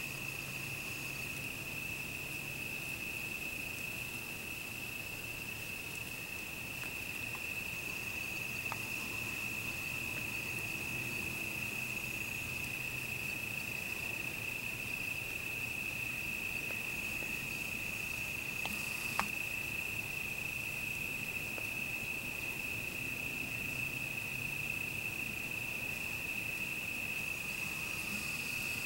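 Crickets trilling in one steady, unbroken high tone, with a single faint click about nineteen seconds in.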